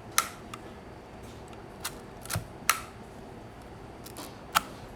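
Sharp mechanical clicks from a Minolta SR-1 35mm SLR film camera's controls being worked by hand, about seven clicks in all, three of them much louder than the rest.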